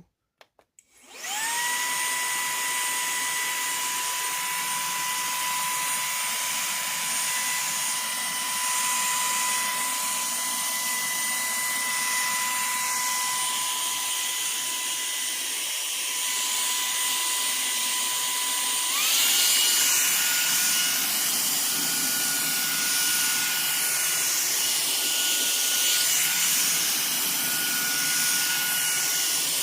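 Kenmore HV3005 11.1 V brushless cordless handheld vacuum switched on and running. Its motor spins up about a second in to a steady high whine over airflow hiss. About two-thirds of the way through, the whine steps up to a higher pitch and holds there.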